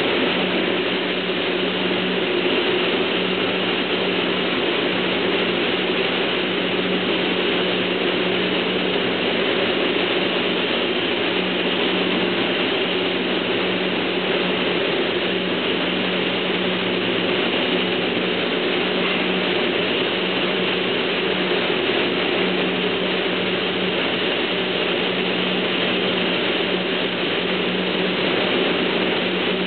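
Steady machinery noise of an automated spray-painting booth, with painting robots spraying car bumpers on a conveyor: an even hiss over a constant low hum.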